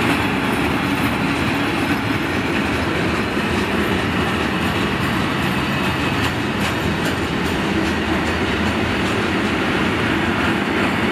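Freight train of covered steel-coil wagons rolling steadily past, a continuous rumble of wheels on rail with faint, scattered clicks.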